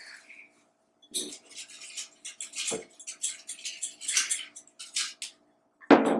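A spoon scraping and tapping against a cup in a quick, irregular run of short scrapes and clicks as food is spooned in and shaken off.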